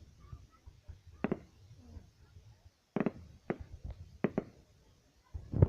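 A handful of faint, scattered sharp clicks or pops. Then, just before the end, a display of fireworks goes off with loud noise and sharp cracks.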